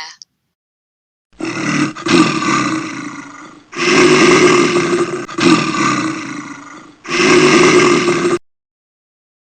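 A large wild animal roaring: about four long, loud roars in a row, each one rough and falling away.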